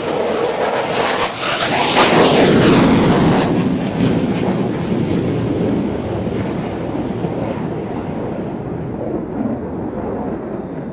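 Jet aircraft passing close at full power: a crackling roar that peaks about two seconds in, then slowly fades away.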